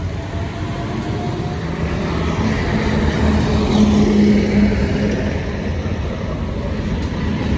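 A motor vehicle passing on the road: its engine hum grows louder, peaks about four seconds in, then fades.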